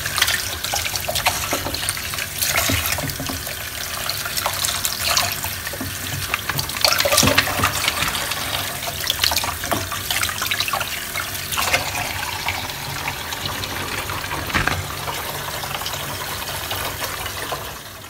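Water running from a tap into a plastic basin in a sink, with irregular splashes as a sheet of sesame rice paper is dipped and moved through it to soften.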